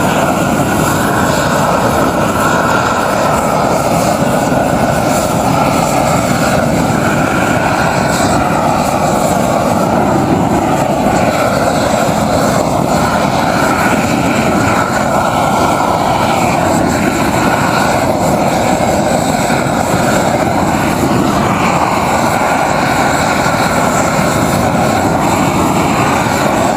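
Propane roofing torch burning steadily. It is heating the granule surface at the end of a modified bitumen roll until the asphalt rubber comes up, so the next roll can be bonded to it.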